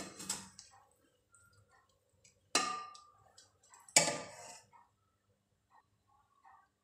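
Metal slotted spoon knocking against an aluminium cooking pot full of rice: two sharp clanks about a second and a half apart, each ringing briefly, with faint soft ticks between.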